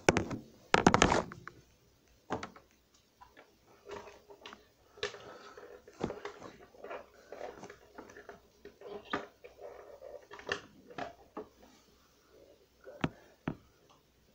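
Handling noise: rustling and scattered light knocks, with a louder rustle about a second in.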